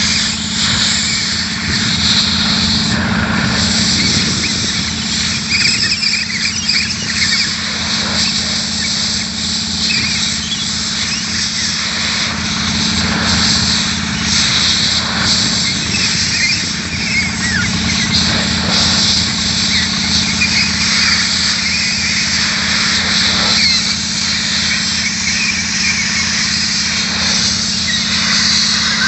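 Compressed air hissing from a hose as it blows dust out of a sugarcane harvester's cylindrical engine air filter element, the hiss wavering as the nozzle is worked around inside the filter. Underneath, an engine runs steadily.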